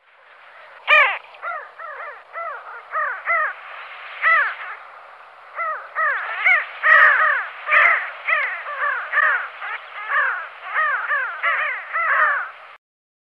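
A flock of birds calling: many short, arched calls overlap, several a second. They grow busier after about five seconds and stop shortly before the end.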